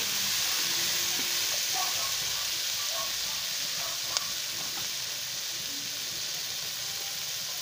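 Onion, string beans and squash sizzling in oil in a wok, a steady frying hiss, with a spatula stirring them during the first few seconds. A single sharp click about four seconds in.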